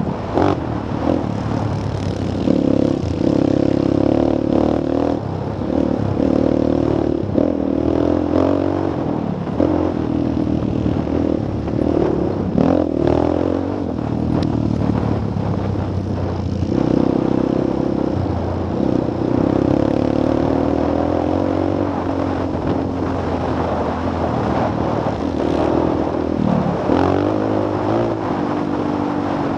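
Sport quad's engine running hard under the rider, its pitch climbing and dropping with the throttle and gear changes, with knocks and rattles from the machine over the bumps.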